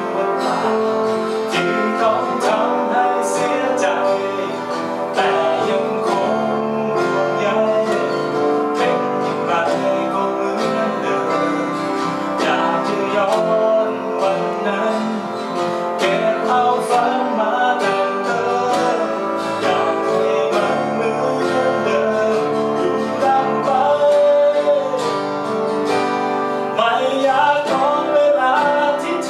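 A man singing a song to a strummed steel-string acoustic guitar, with keyboard accompaniment, picked up by a camcorder's built-in microphone.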